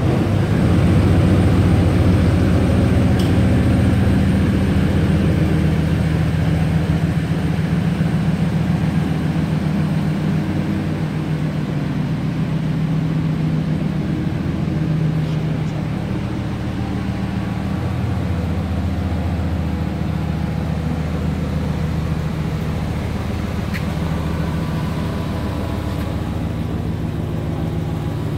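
2012 Dodge Ram pickup's engine running steadily at low revs.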